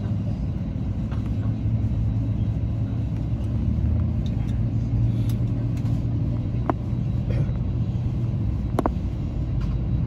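Steady low drone of an Airbus A321 cabin, with two brief clicks in the second half.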